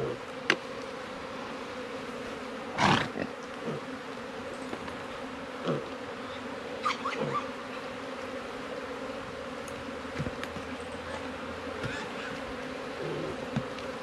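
Honeybees buzzing in a steady hum around an opened Langstroth-style hive, agitated and defending it, stinging at the beekeeper's gloves. A few short knocks, the loudest about three seconds in.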